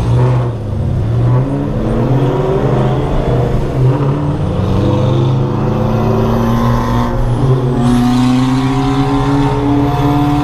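Ford Mustang GT's 4.6-litre three-valve V8 with aftermarket exhaust, intake and tune, running at moderate revs with its pitch climbing slowly as the car gathers speed, over road and wind noise.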